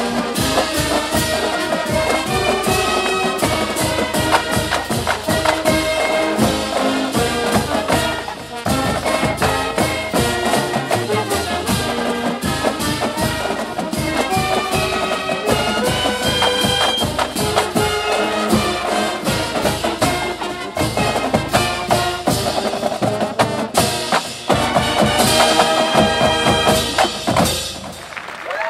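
Marching band playing: brass (trumpets, mellophones, sousaphones) sounding sustained chords and melody over a steady, driving drumline beat.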